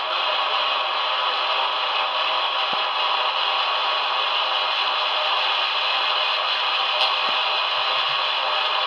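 Steady radio static hiss, with a faint click about seven seconds in.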